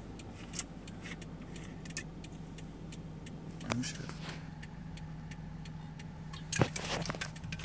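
Car running, heard from inside the cabin: a steady low engine hum with scattered light clicks and ticks.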